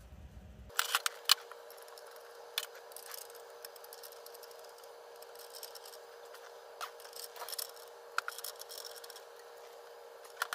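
Scattered metal clicks and clinks of a hand wrench working the fitting of a fuel rail crossover tube as it is threaded on and snugged up. They are loudest in a quick cluster about a second in, over a faint steady hum.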